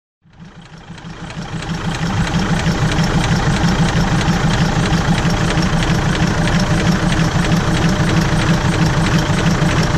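Air compressor of a diesel railcar running with a fast, steady chugging pulse. It builds up over the first two seconds, then holds steady.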